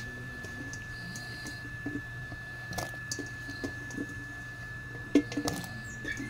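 Pot of water at a rolling boil as chunks of eggplant, okra and other vegetables are dropped in, giving soft splashes and scattered knocks, the sharpest about five seconds in, over a steady low hum.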